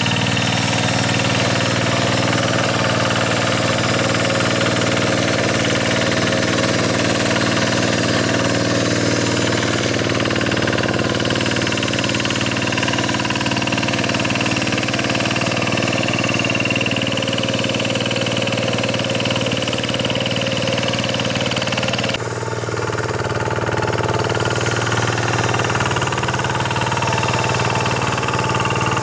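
Kubota single-cylinder diesel engine of a Quick two-wheel rotary hand tractor running steadily under load as the tractor works through the paddy. The sound shifts suddenly and drops slightly about three quarters of the way through.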